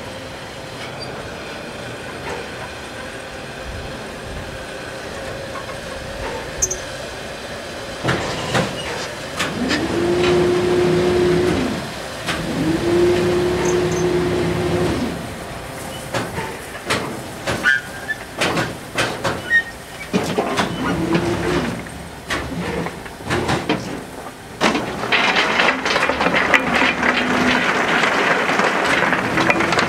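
Coaling crane's motor whining up to a steady pitch, holding, then winding down, several times as it hoists and swings its grab bucket, with scattered metallic clanks. Near the end comes a louder rattling rush: coal tipping from the grab into a narrow-gauge steam locomotive's coal bunker.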